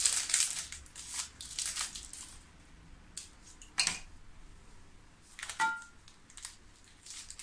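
Crinkling and tearing of plastic biscuit wrappers, with scattered light clicks and taps as biscuits go into a clear chopper bowl. One tap a little over halfway through rings briefly.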